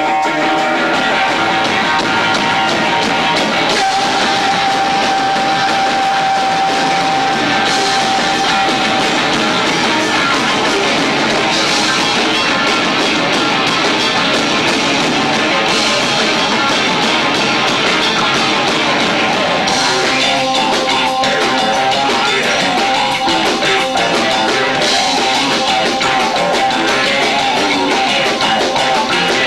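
Live rock band with electric guitar, bass and two drummers playing loud, heavy music, heard through a 1990s camcorder's built-in microphone with low-fi, saturated sound.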